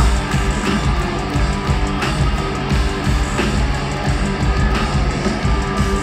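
Live rock band playing a stretch without vocals: distorted electric guitar over drums keeping a steady beat.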